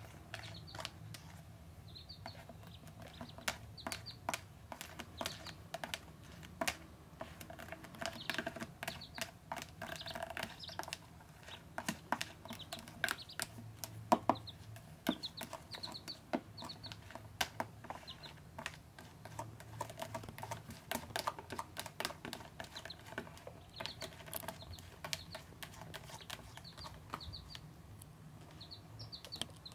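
Duckling and chick peeping in short groups of high calls, over many small clicks and taps on a clear plastic tub as the birds peck at it and the kitten inside paws at it.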